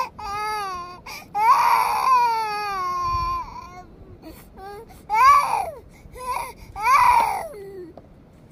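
A small child crying in a run of high wails, several sliding down in pitch, with short breaks between them.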